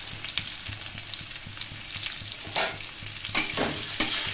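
Freshly added sliced onions sizzling in hot oil in a metal kadai, with a few sharp scrapes and knocks in the second half as a spatula goes into the pan.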